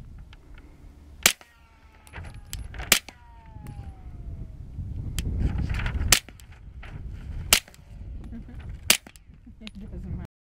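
Handgun shots: five loud single reports at uneven intervals one to three seconds apart, with a few fainter pops between them. The sound cuts off suddenly near the end.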